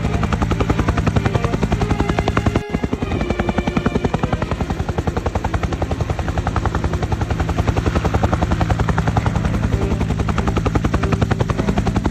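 Helicopter rotor chopping steadily in fast, even blade beats over a low engine drone, with a brief break about two and a half seconds in.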